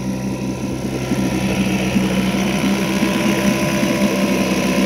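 1984 Evinrude 4E 4 hp two-stroke outboard idling steadily in a test barrel, its propeller churning the water.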